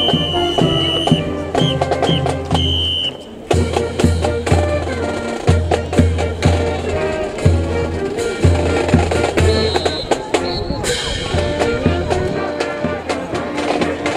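Marching band playing brass and drums: a sousaphone bass line under trumpets and other brass, with snare drums, bass drum and cymbals keeping a steady beat. The music breaks off briefly about three seconds in, then picks up again.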